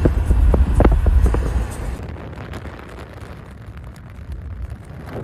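Car driving on a road, heard from inside: a low road rumble with wind on the microphone. About two seconds in the rumble drops away sharply, leaving a quieter hiss.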